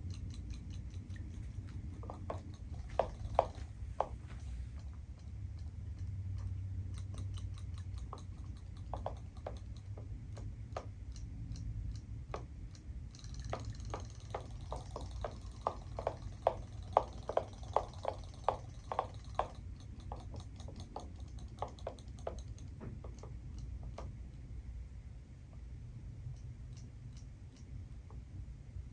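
Battery-powered Robo Fish toy swimming in a plastic tub of water, giving runs of light rapid ticks, several a second, as its flapping tail works along the tub's wall. The ticks come in two main runs, a few seconds in and again in the middle.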